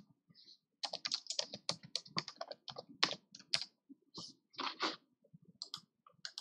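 Typing on a computer keyboard: a quick run of key clicks starting about a second in, thinning to a few scattered taps near the end.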